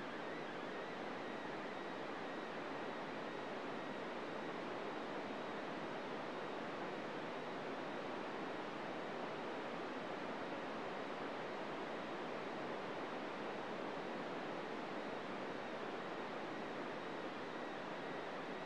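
Steady FM radio static on 145.800 MHz, an even hiss with a faint high steady whistle in it. It is the open receiver hearing only noise: the ISS's SSTV signal has faded out as the station sinks toward the horizon at the end of the pass.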